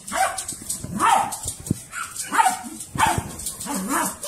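Small black dog barking repeatedly, about six short barks spaced well under a second apart.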